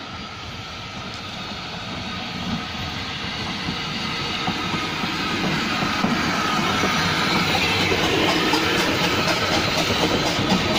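Narrow-gauge steam locomotive No. 762 'Lyn' and its carriages running toward the listener and drawing alongside, growing steadily louder. Over the last few seconds there is a regular clatter of wheels over the rails.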